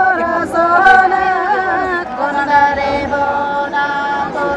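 A woman singing a Nepali folk song in a sung exchange, her voice holding long, steady notes that bend between pitches.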